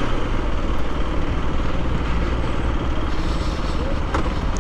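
Aprilia RS 125's single-cylinder four-stroke engine running at low revs as the motorcycle slows towards a stop, heard from the rider's position, with a couple of short clicks near the end.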